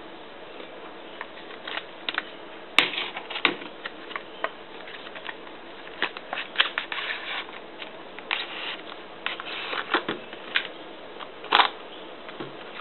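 Clear plastic blister pack and its paper insert being handled and opened by hand: irregular clicks, crackles and rustles, with a sharp snap about three seconds in and another loud crackle near the end.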